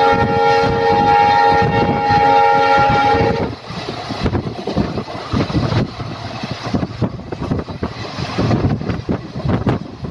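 WDP4D diesel locomotive's horn sounding one long, steady multi-tone blast that cuts off about three and a half seconds in. It is followed by the rumble and irregular clatter of the train running over the rails.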